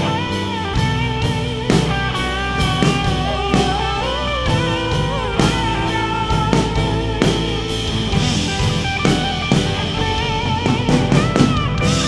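Instrumental break in a band's worship song: guitar playing a wavering melodic line over a steady drum-kit beat, with no singing.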